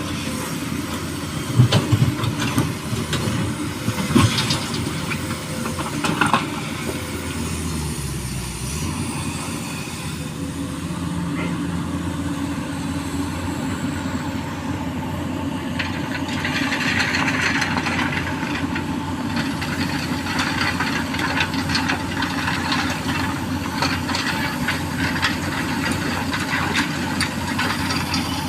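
Excavator's diesel engine running steadily, with hydraulic hiss and several sharp knocks in the first few seconds; the hiss grows louder for a few seconds past the middle.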